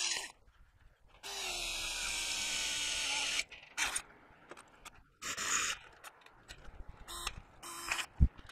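Cordless drill with a step drill bit running steadily for about two seconds, boring a bolt hole in a steel trailer tailgate frame, then a few shorter bursts, and a sharp knock near the end.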